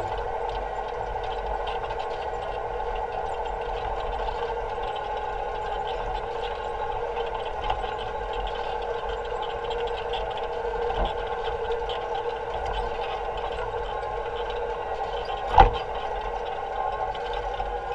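Electric-powered Allis-Chalmers Model G tractor running at a steady pace with its basket weeder, giving an even electric motor whine with faint clattering. One sharp knock comes near the end.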